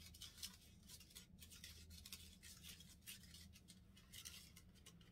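Small plastic spoon stirring and scraping a DIY candy powder-and-water mix in a plastic tray: a quick, faint run of scratchy strokes.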